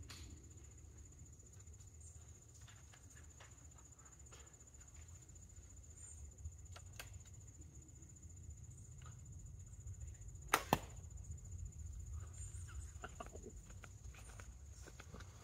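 A traditional bow being shot: two sharp cracks in quick succession about ten seconds in, as the bowstring snaps forward. They sit over a faint steady high insect drone, a low rumble and small handling ticks.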